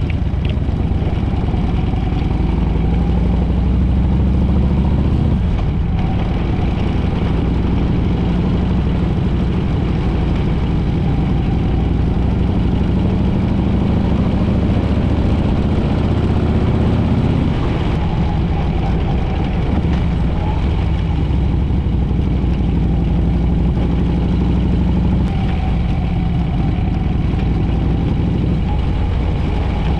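Harley-Davidson V-twin motorcycle engine running while the bike is ridden. The engine note eases off and picks up again a couple of times.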